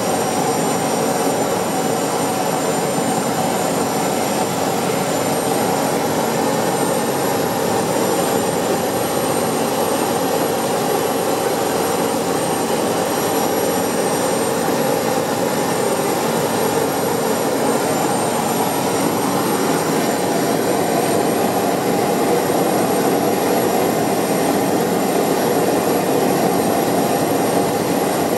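Walter M601D turboprop engine of an Atlas Angel running steadily, heard from inside the cockpit. A thin, high, steady whine sits over a steady rumble, and the sound grows slightly louder in the last third.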